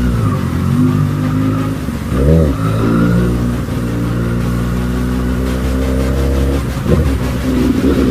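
Suzuki GSX-S1000's inline-four engine running steadily while riding, with a quick throttle blip, rising and falling in pitch, about two seconds in and another short rise near the end.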